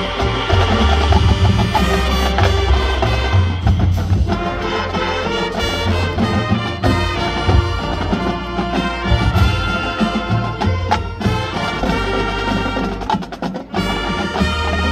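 High school marching band playing its field show: brass sustaining chords over drumline and front-ensemble percussion, with a heavy pulsing bass. The volume dips briefly near the end, then the full band comes back in.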